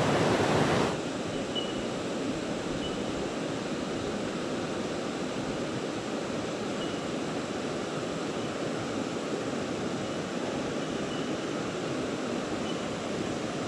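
Flowing creek water heard with the camera held underwater: a steady, muffled wash of noise. It is louder and brighter for about the first second, before the camera goes under.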